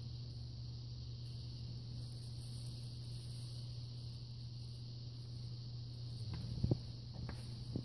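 Steady outdoor background of a low hum and a high hiss, with a few knocks and taps from bubble wrap being handled against the canvas near the end. The loudest is one sharp tap about seven seconds in.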